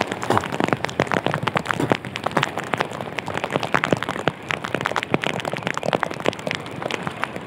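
Choppy sea surf washing and splashing close by: a dense, crackling wash of many small splashes, with no let-up.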